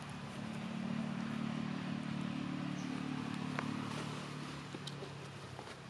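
A motor engine running steadily with a low hum that swells about a second in and fades near the end, with a few faint clicks.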